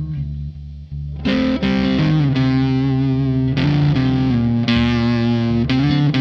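Electric guitar played through a fuzz effect. Softer held low notes give way, about a second in, to loud distorted chords that are let ring and change every second or so.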